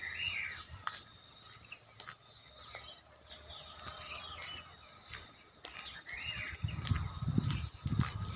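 Birds chirping in short calls, once near the start and again about six seconds in, over a faint steady hum. Low rumbling comes in near the end.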